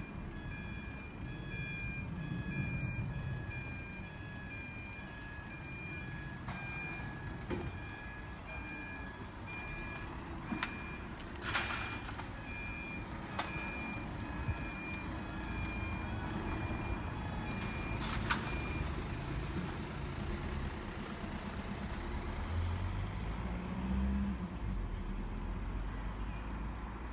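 Level crossing warning alarm beeping in a steady, even pulse on two pitches while the barrier arms come down, then stopping about two-thirds of the way through. A few sharp knocks come from the lowering barriers, over low road-traffic rumble, and a car engine idles near the end.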